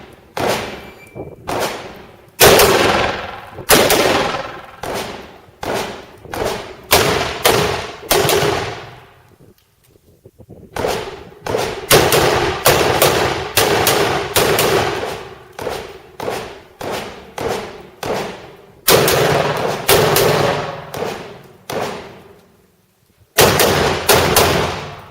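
Rifle shots fired in rapid strings, about two a second, each followed by a short ringing echo. The firing stops for about a second near the middle and again for about a second before a last quick string of three shots near the end.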